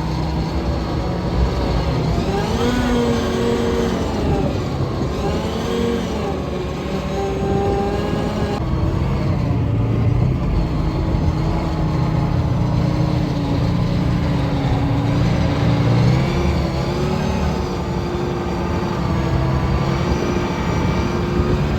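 Heavy military vehicle engine running under load during a passenger ride, a steady rumble whose pitch rises and falls several times in the first seconds and shifts again later.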